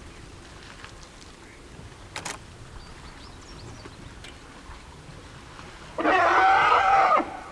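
Quiet outdoor background, then a loud animal call lasting about a second near the end.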